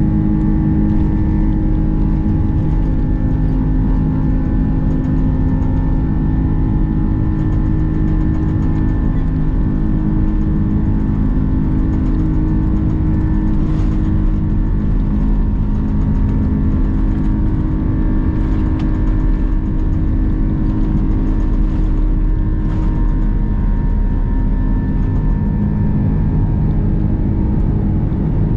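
Airbus A330-200 jet engines heard inside the passenger cabin while the airliner moves along the ground: a steady, loud hum with a constant whine over it.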